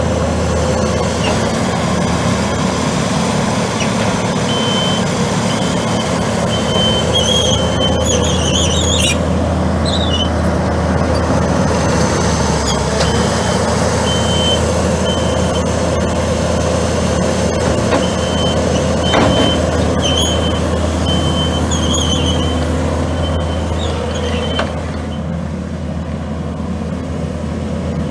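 Kubota SVL75-2 compact track loader's four-cylinder Kubota V3800 diesel running steadily, with its backup alarm beeping in repeated runs as the machine reverses. A few short high squeals are heard, and the engine drops a little near the end.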